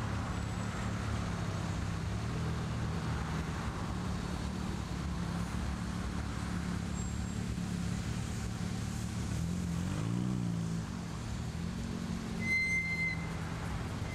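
Engines of several modified cars idling and pulling away as they drive slowly past one after another, a steady low engine note throughout. About two-thirds of the way through, one engine's pitch rises and falls as a car goes by. Near the end there is a short high beep.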